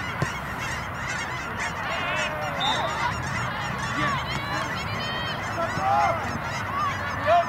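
A flock of geese honking, many short calls overlapping throughout.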